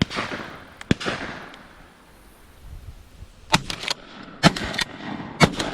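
Shotgun shots at a passing dove: several sharp reports, the first two near the start trailing off in an echo, then a quick run of sharper cracks in the second half.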